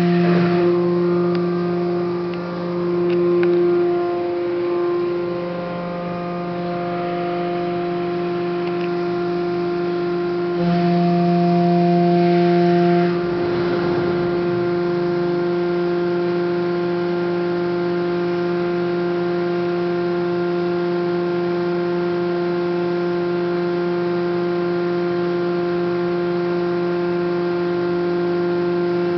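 Hydraulic power unit of a Haco 400-ton CNC press brake running with a steady, pitched hum. It grows louder for about two seconds just before the middle, then a short rushing noise follows and it settles back to an even hum.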